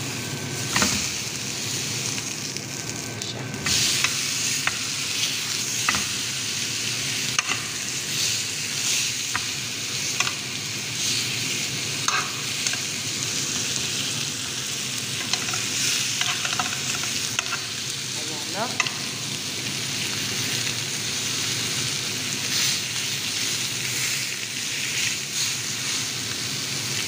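Beef steak sizzling in a hot ridged grill pan: a steady hiss with scattered pops and crackles.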